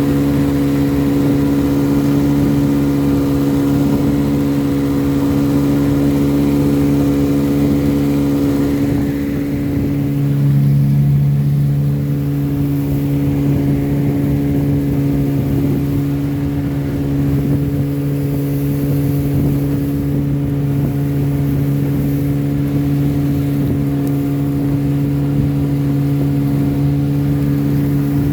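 1957 West Bend-built Elgin 7.5 hp two-cylinder two-stroke outboard motor running steadily, its head gasket newly replaced. The pitch holds even throughout, apart from a brief rise in engine note about ten seconds in.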